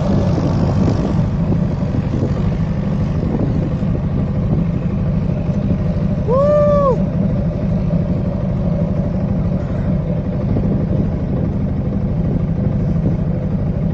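ATV engine running steadily, with a short high rising-and-falling tone about six seconds in.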